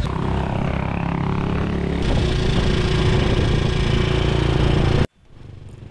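Motorcycle engine of a tricycle running steadily. The sound shifts abruptly about two seconds in and cuts off sharply near the end, leaving a much quieter hum.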